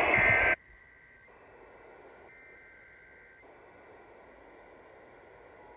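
Radio audio that cuts off abruptly about half a second in, leaving faint receiver hiss with a few faint steady high tones.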